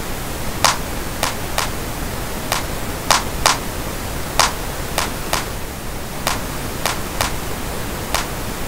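Steady pink noise hissing across the whole range, with a sampled electronic hand clap hitting over it in a repeating pattern of about three claps every two seconds. The pink noise is the reference bed against which the clap's EQ is being judged.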